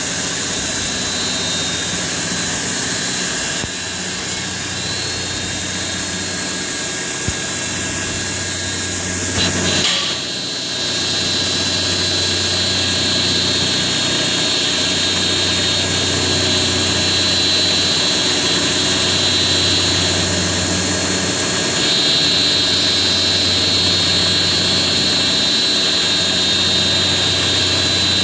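Horizontal 1-litre lab bead mill running steadily: a motor hum with several steady high-pitched whine tones over it. There is a brief dip and a slight change in tone about ten seconds in.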